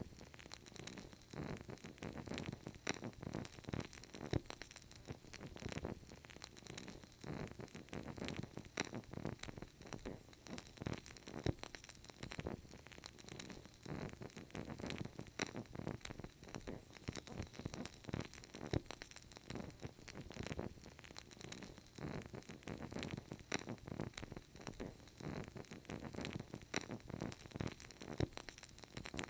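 Burning candle crackling steadily, a dense run of small irregular pops and ticks.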